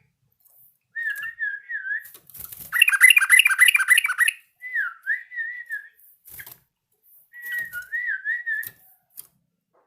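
Yellow-vented bulbul singing: short, wavering whistled phrases, with a loud, rapid run of chattering notes about three seconds in, then more wavering phrases. A few faint clicks fall between the phrases.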